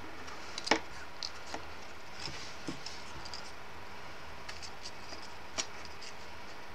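Card flower petals handled and pressed into place by fingers: soft rustling and light scratching, with a sharp tap under a second in and another near the end.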